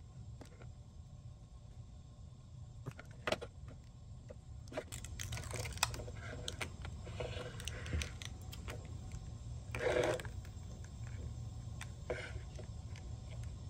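Scattered small clicks, taps and brief rustling as hands handle phone parts on a table, over a steady low hum.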